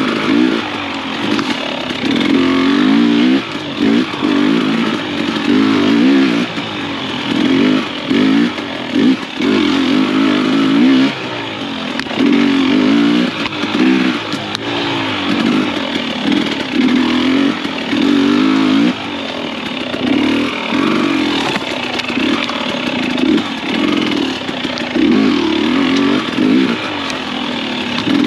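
Husqvarna TX300i 300 cc two-stroke enduro motorcycle engine worked hard on and off the throttle. It revs up and falls back in short bursts about every second or two, as on tight, technical trail.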